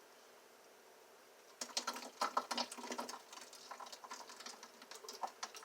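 Thick, chunky blended banana-peel slurry pouring and splattering in quick irregular wet plops and clicks, starting about a second and a half in.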